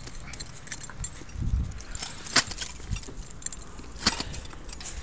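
Footsteps crunching through deep snow, an irregular run of sharp crunches, with a low rumble on the microphone about a second and a half in.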